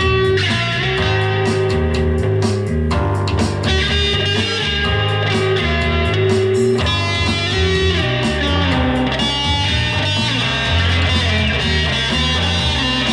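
Electric guitar played through an amplifier, with held notes over a backing track of bass and drums.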